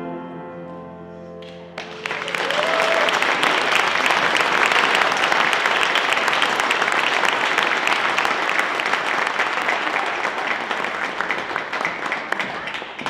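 A choir's final held chord dies away, then applause breaks out and continues steadily, fading near the end.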